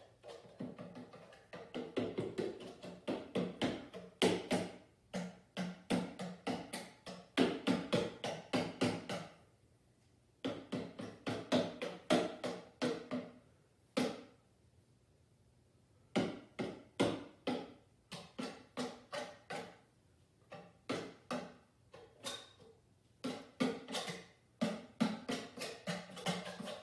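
A paintbrush dabbing oil paint onto a stretched canvas: a quick, irregular run of taps, several a second, that stops briefly a few times.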